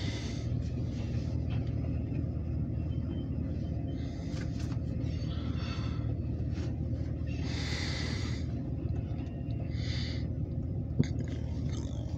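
Steady low engine rumble heard from inside a vehicle cab as a short train of covered grain hopper cars rolls past, with a few short hissing swells and a sharp click about eleven seconds in.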